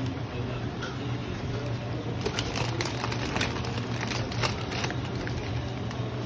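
Pot of chicken tinola broth simmering under a layer of fresh spinach, with soft irregular ticks and pops over a steady low hum.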